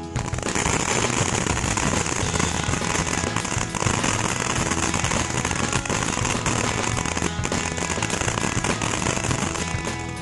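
A small firework spraying sparks with a steady hiss and dense crackling. It starts suddenly and stops about nine and a half seconds later.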